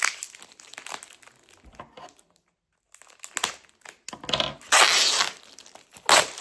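Packaging being handled and torn open: irregular crinkling and rustling, a brief pause, then a longer, louder crinkling burst about five seconds in.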